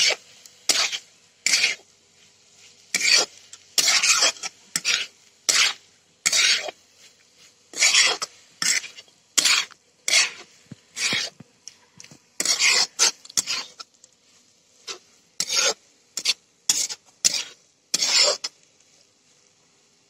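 Metal spoon scraping and stirring fenugreek and potato bhurji in a metal kadai: irregular rasping strokes, roughly one a second, with a faint sizzle between them, as the salt and chilli are roasted into the dish.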